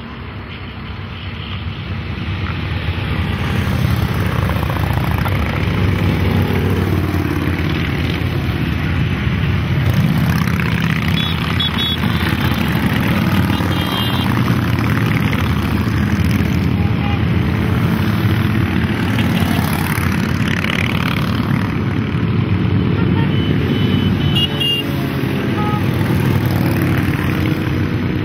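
A long column of cruiser and touring motorcycles rumbling past one after another, their engines blending into one continuous drone. The sound builds over the first few seconds and then holds steady.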